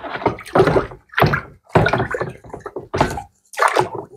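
Cleaned metal scooter engine parts being handled, lifted out of an ultrasonic-cleaner basket and set down: a run of short knocks and clatters, about six in four seconds.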